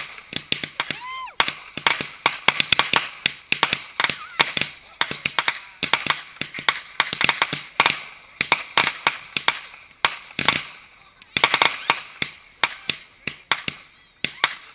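Consumer aerial fireworks firing: a fast, irregular string of pops and bangs as shots launch from the ground and burst overhead into crackles.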